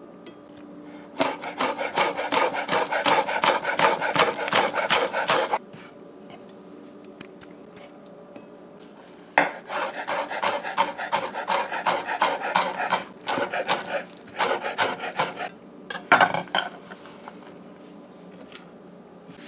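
Chef's knife rapidly chopping broadleaf thyme leaves on a wooden cutting board: a run of quick knocks starting about a second in and lasting about four seconds, a second run from about nine seconds in lasting about six seconds, and one last short knock after it.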